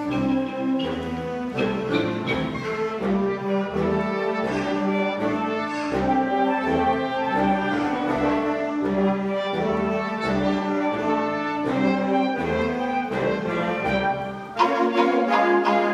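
Student wind band playing a lively piece: clarinets and saxophones over brass, with a bass line moving in steady steps. Near the end there is a brief drop, and then the full band comes in louder.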